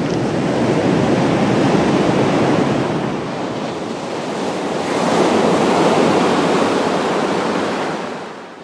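Sea surf on a sandy beach: waves breaking and washing in. There are two swells, the first about a second in and the next about five seconds in, and the sound fades away near the end.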